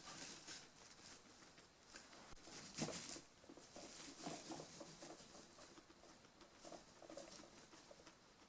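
Quiet, irregular rustling and pattering of guinea pigs moving about in their cage bedding, loudest about three seconds in.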